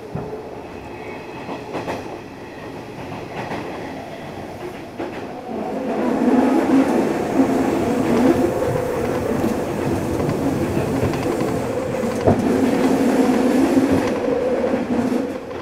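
Hanshin 1000 series electric train running at speed, heard from inside the car: wheels rumbling on the rails with a few rail-joint clacks and a steady hum that grows louder about six seconds in.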